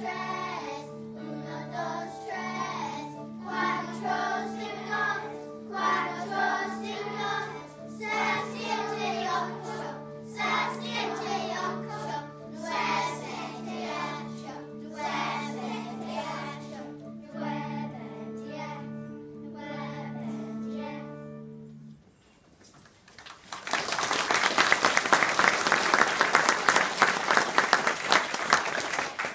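A group of young children singing together with musical accompaniment. Near the end the song stops, and after a short pause an audience of children claps loudly.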